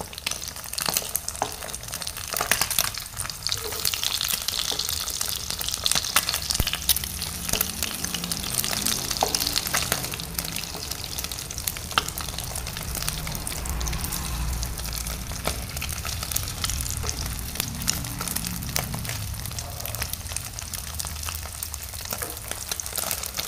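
Beaten eggs frying in hot oil in a non-stick pan: a steady sizzle dotted with many small crackles and pops, with the scrape and tap of a wooden spatula and chopsticks as the egg is turned.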